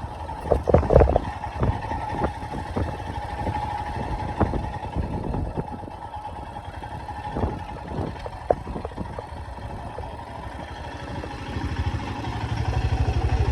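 Motorcycle engine running, with frequent short knocks and rattles over its steady drone; the engine note grows louder and more throbbing near the end.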